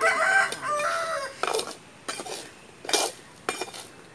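A rooster crows once, then a metal spoon clinks against a small metal pan about four times as it is stirred.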